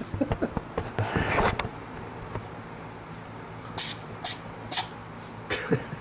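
A house cat sneezing: three short, sharp sneezes about half a second apart, and another near the end, after some clicks and a brief noisy burst in the first second and a half. The owner guesses the sneezing comes from dust or something up her nose.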